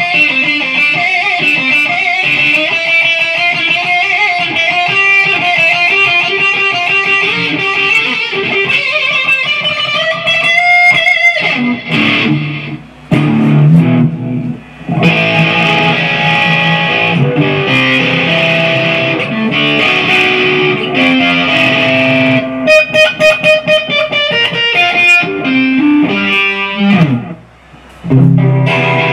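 Modified Kazuki Baby 1 mini electric guitar played through an EVH 50-watt amp head and cabinet with a multi-effects unit, picked up by the camera's own microphone. It plays a lead line of held notes broken by a few short pauses, with a quick burst of fast repeated picking about two-thirds through and a note sliding down near the end.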